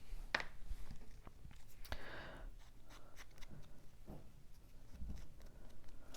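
Cut cardstock pieces and small crafting tools being handled on a table: scattered light taps and clicks, with a brief rubbing sound about two seconds in.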